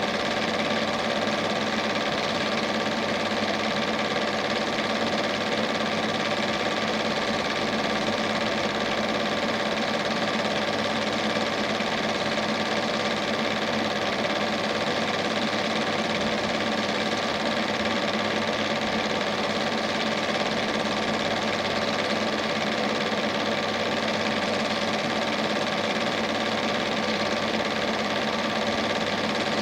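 Standard 8 cine projector running: a steady mechanical whirr with constant hum tones that never change in level.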